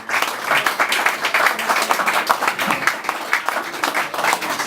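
Audience applauding, a steady patter of many people clapping.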